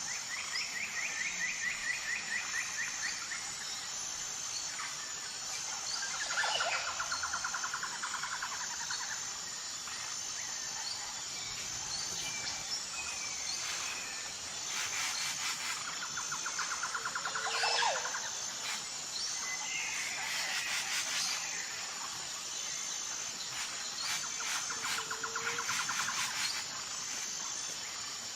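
Tropical jungle ambience: a steady high insect drone, with birds calling over it. The bird calls are rapid trills of a couple of seconds each, coming about four times, along with a few short sweeping whistles.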